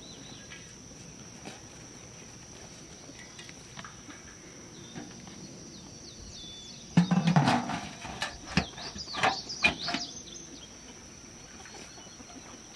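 Farm ambience: a steady high insect trill, like crickets, with a louder flurry of chirping bird calls about halfway through.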